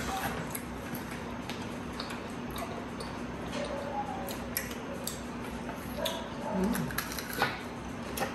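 Close-up eating sounds: scattered crunches and clicks of crispy fried food being bitten, chewed and picked up from plates, over a faint steady hum.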